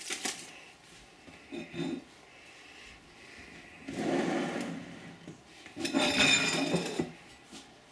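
Kitchen handling noises in three short bouts: aluminium foil crinkled as a baked fish parcel is opened, then a baking tray on a wooden board slid across the worktop and a china plate moved, with rubbing and scraping.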